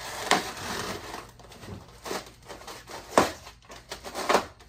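Styrofoam packing in a cardboard box being handled and pulled apart: continuous crunching and rustling with several sharp cracks, the loudest a little past the middle.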